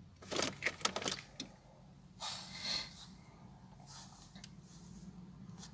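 A car key jangling and clicking into the ignition lock of a VW Golf 4 diesel, with a short rustle a couple of seconds in. A few faint clicks follow as the ignition is switched on, before the engine is cranked.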